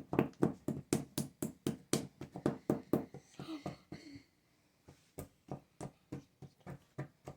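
A wooden mallet striking a wooden chisel into a plaster gem-dig brick, in quick, even taps about four a second, pausing for a second or so about halfway through, then tapping on more slowly.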